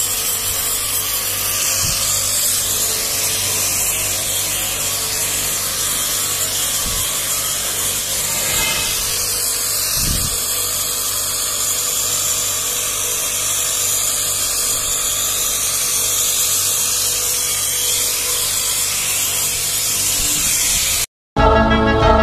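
StarQ W3 electric pressure washer running, a steady hiss of the water jet rinsing foam off a car's body over a faint steady motor hum. It cuts off abruptly near the end and music starts.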